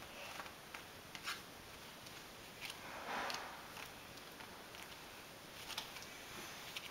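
Faint rustles and light clicks of small paperback books being handled, with a short, louder rustle about three seconds in.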